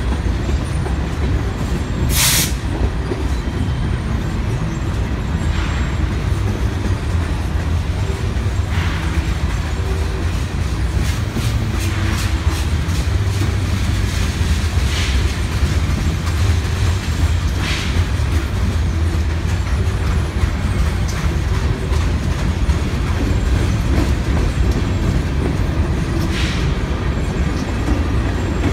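Freight cars of a BNSF mixed freight train rolling past close by: a steady low rumble of wheels on rail, with a few sharp clacks from the wheels, the loudest about two seconds in.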